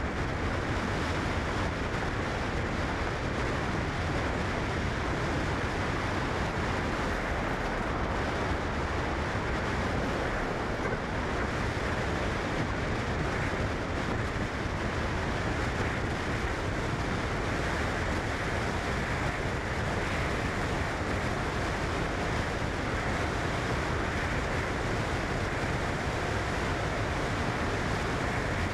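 A steady, even rushing noise that does not rise or fall.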